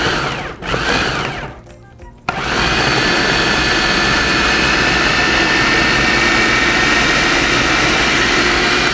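Food processor chopping raw vegetables and tomatoes: two short pulses, then the motor runs steadily from about two seconds in as the pieces are cut finely.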